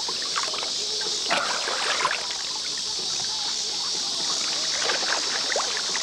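A steady, high-pitched evening insect chorus from the riverbank woods, with scattered short, faint sounds over it.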